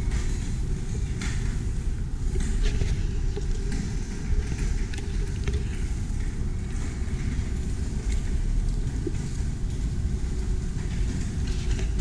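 A wheeled cart rolling over a concrete path: a steady low rumble with light rattling and clicks.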